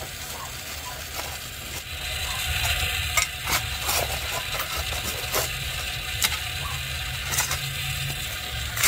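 Steel spade digging and scraping into damp soil and gravel, with irregular crunches and scrapes of stones against the blade about once a second.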